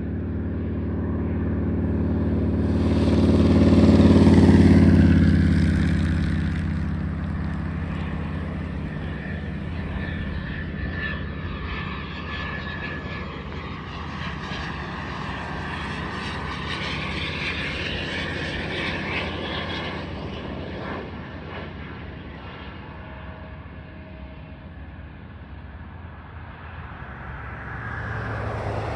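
Cessna Citation Mustang's twin Pratt & Whitney PW615F turbofans passing overhead on landing approach: a rushing jet sound with a faint steady whine that slowly fades away. A road vehicle passes close about four seconds in, the loudest moment, and another approaches near the end.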